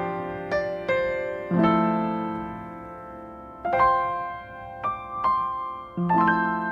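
Calm background piano music: single notes and chords struck slowly and left to ring and fade.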